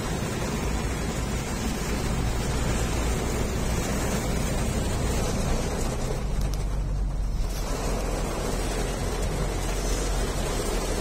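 Heavy rain on a moving car heard from inside the cabin: a steady hiss of rain and wet tyres over a low road rumble. The hiss thins out for about a second partway through, then returns.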